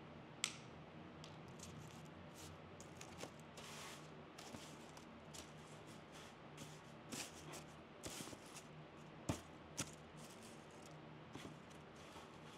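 Hand pruning snips clipping evergreen sprigs: several sharp snips, the crispest about half a second in and a pair close together about three-quarters through, with soft rustling of the cut greens between.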